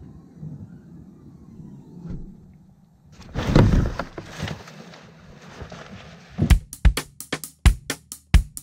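A car's rear hatch being opened, a single loud burst about three and a half seconds in. From about six and a half seconds, music with a steady drum-kit beat starts.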